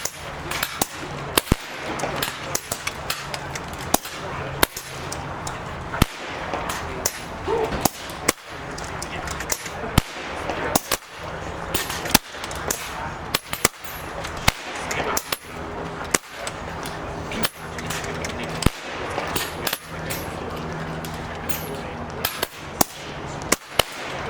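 Many PCP air rifles firing along a benchrest line, sharp cracks coming irregularly, often one or two a second and sometimes close together, over a low murmur of voices.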